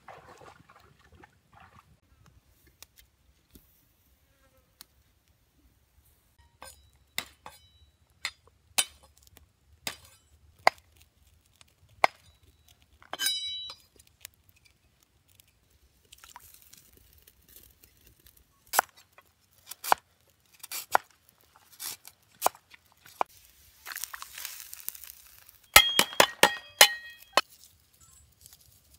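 Cleaver blade chopping red chilies on a wooden chopping board: single sharp knocks at irregular intervals, a few ringing briefly like metal, with a quick cluster of strikes near the end.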